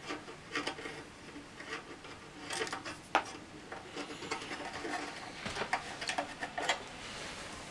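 Small metal nuts being spun by hand onto the potentiometer shafts of a guitar amplifier's metal front panel: light, irregular clicks and scrapes of metal on metal, with one sharper click about three seconds in.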